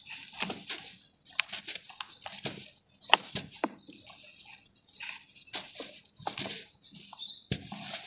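Lumps of dry red dirt crumbling in the hands and pouring down onto a heap of loose dirt in a basin: irregular crackles and clicks with short hissing pours.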